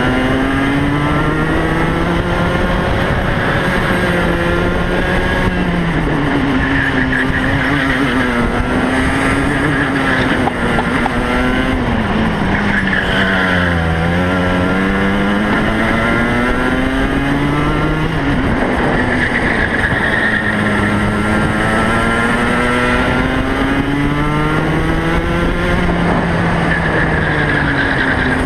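Onboard Rotax Max 125 cc two-stroke kart engine at racing speed, its pitch climbing along the straights and dropping as the kart slows for corners, several times over, with steady rushing noise underneath.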